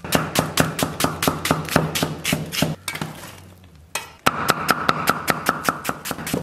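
Cleaver chopping onions on a thick wooden chopping block: fast, even strokes about five a second. The chopping stops for about a second around the middle, then starts again.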